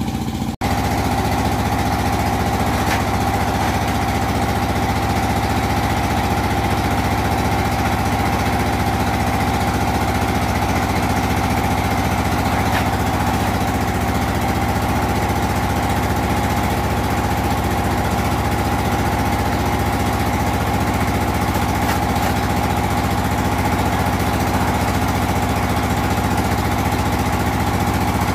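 Engine-driven brick-making machine running steadily while it moulds clay into bricks: a steady whine over a low engine drone.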